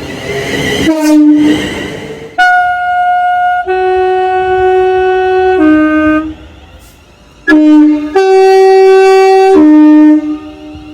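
A British train's two-tone air horn sounding a run of loud blasts that switch back and forth between a high and a low note. The rush of a passing train can be heard in the first two seconds.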